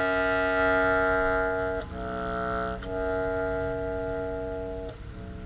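Bass clarinet playing a slow, rich-toned phrase: a long held note, a softer different note about two seconds in, then the first note again, held until it dies away near the end.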